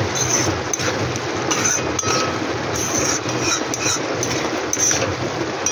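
Curry sizzling and bubbling in a steel kadai on a gas stove, with a metal ladle scraping and clinking against the pan as it is stirred.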